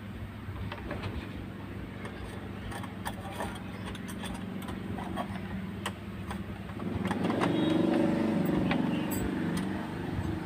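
Light metallic clicks and taps of wire rods and screws being handled and hooked into a can, over a steady low hum. About seven seconds in, a louder engine rumble swells for roughly two and a half seconds, then fades.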